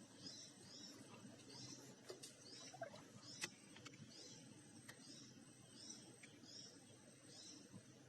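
A small animal calling faintly: short high chirps repeated about twice a second, with a few scattered faint clicks.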